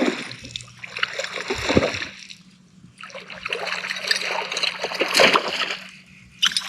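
Water splashing as a hooked largemouth bass thrashes at the surface while being reeled in, in two bouts with a short lull between.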